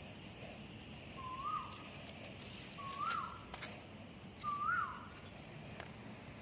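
A bird's clear whistled call, one note rising then dropping, repeated three times about a second and a half apart.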